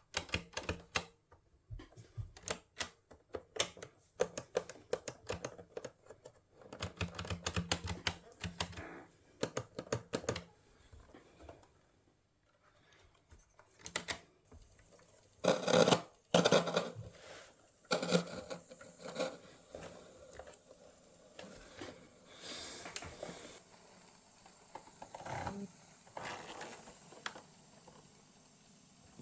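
Rapid clicks and clatter of hard objects being handled, with a few louder knocks about halfway through, then quieter rustling and scattered clicks.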